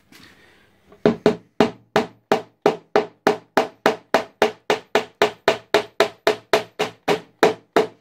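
Hammer driving a nail through a leather-wrapped rope end into a wooden shield board: an even run of quick strikes, about three and a half a second, starting about a second in.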